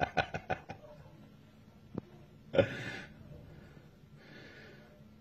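A person laughing hard: a run of quick staccato laughs that trails off within the first second, then a sudden loud burst of laughter about two and a half seconds in, followed by a few breathy exhales as they catch their breath.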